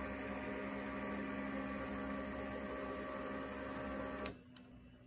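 Lego Technic electric motor and gear train running steadily with a whirring hum, driving the marker-drawing robot; it cuts off suddenly about four seconds in, followed by a couple of faint ticks.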